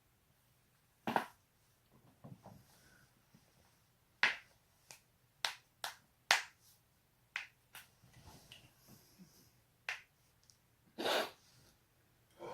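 Neck and back joints cracking: about ten sharp pops at uneven intervals, several in quick succession in the middle, with a longer crack near the end.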